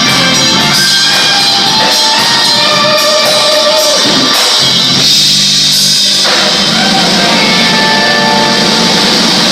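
Live rock band playing with singing.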